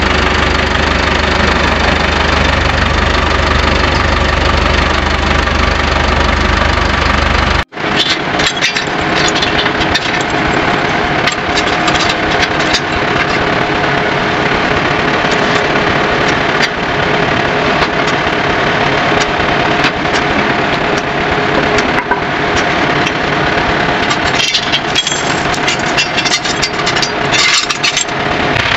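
Farm tractor engine idling steadily, with a brief break about eight seconds in. Later there are sharp metallic clinks from the hitch chains and drawbar being handled, most of them near the end.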